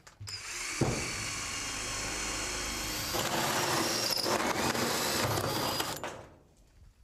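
Cordless drill cutting a hole through a galvanized sheet-metal duct, running steadily with a high whine. It gets louder about halfway through and stops about six seconds in.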